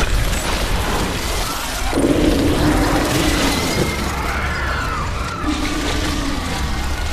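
Disaster-film sound mix: a loud, continuous rumble of crashing, shattering effects with music under it, and a few held and gliding tones above.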